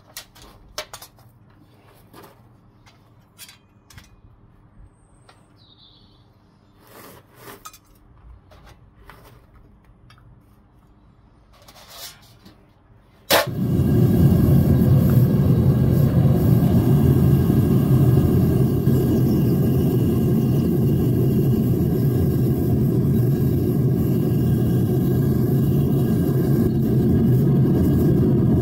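Scattered light metal clinks, then about halfway through a sharp click as a propane melting furnace's burner lights and runs, loud and steady.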